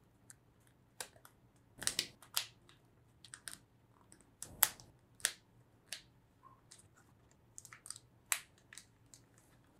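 LEGO Technic plastic parts clicking and snapping as a small worm-gear assembly is handled and pressed onto pins and axles: irregular sharp clicks, the loudest about two and four and a half seconds in.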